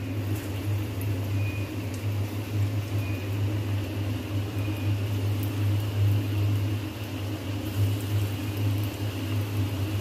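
Cornflour-coated potato fries sizzling in hot oil in a kadai, an even hiss with faint crackles, over a steady low hum.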